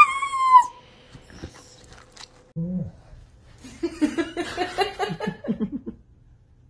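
Shiba Inu giving one short high-pitched cry that falls slightly in pitch. After it comes a quick string of short vocal sounds, about five a second, for some two seconds.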